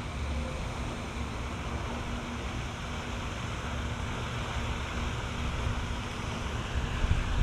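Wind buffeting the microphone: a steady low rumble with an even hiss above it and a faint steady hum underneath.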